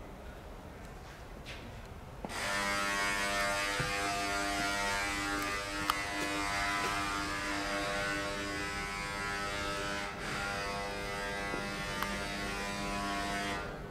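Steady electric buzz from a small motor. It switches on abruptly about two seconds in, dips briefly once, and cuts off just before the end.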